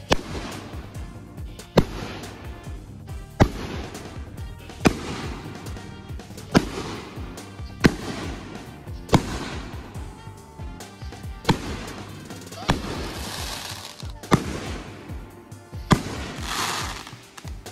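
Aerial firework shells going up and bursting one after another, like a repeater cake: sharp bangs about every second and a half, slightly uneven, with background music underneath.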